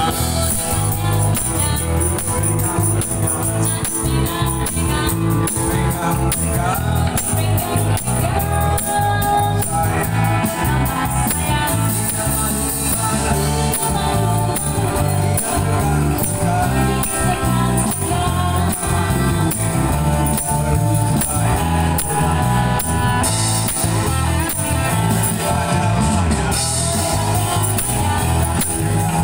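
Live band playing a song: a woman singing into a microphone over electric bass guitar and electric guitar, with a tambourine shaken along to the beat.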